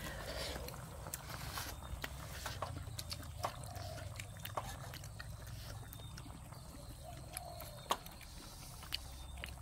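Quiet eating sounds at a meal: chopsticks clicking against bowls and the pot, and chewing, as tough boiled duck is eaten. A few sharper clicks stand out over a low steady hum.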